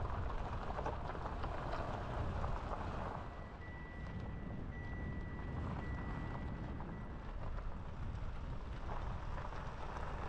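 A car driving over a rough dirt track: steady low road rumble with wind rushing over the microphone. A faint high tone sounds in three spells of about a second each near the middle.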